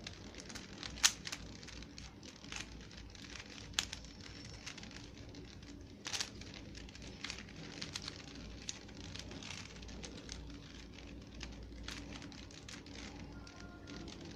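3x3 Rubik's Cube being scrambled by hand: plastic layers turning with irregular clicks and rattles, a few sharper clicks standing out.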